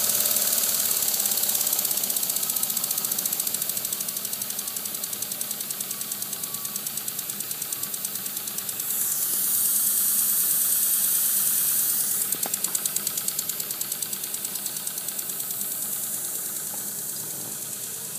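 Small model oscillating engine running fast on compressed air: a rapid, even chuffing of exhaust over a steady hiss. From about nine to twelve seconds in, the rush of air grows louder, then drops back.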